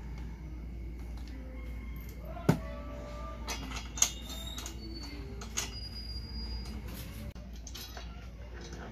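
Metal clinks and knocks of a metal top box bracket and its bolts being handled and fitted onto a scooter's rear frame, with two sharp knocks about two and a half and four seconds in, then lighter scattered clicks.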